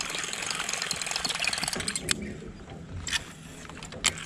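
Baitcasting reel cranked to retrieve line: a rapid ticking whir that thins out after about two seconds, with two sharp clicks, one about two seconds in and one near the end.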